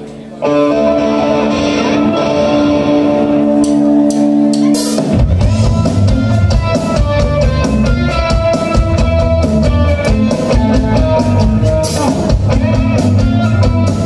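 Rock band playing live: a held chord rings on its own for the first few seconds, then drums and bass come in about five seconds in and the full band plays with a steady beat.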